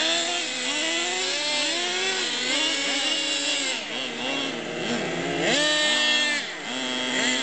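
Several RC cars' motors revving up and easing off over and over, their pitches rising and falling and overlapping one another.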